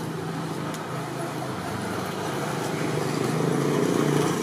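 A motor vehicle's engine running steadily and drawing nearer, growing louder to a peak near the end and then starting to fade, as it passes.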